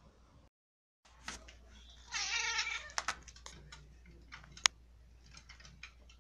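A cat meows once, a short call about two seconds in. Several sharp clicks and knocks follow, with one loud knock about two and a half seconds after the meow.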